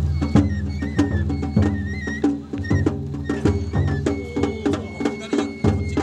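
Japanese festival music (matsuri-bayashi) accompanying a carried festival float: taiko drum strikes in a quick, uneven rhythm under a high bamboo flute melody with trills and long held notes.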